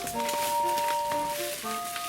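Electronic polyphonic melody from a Citizen Sound Pro R412 alarm radio clock's 32-voice sound chip: clear, sustained notes in several parts, with a long high note held for over a second, over faint clicking crackle.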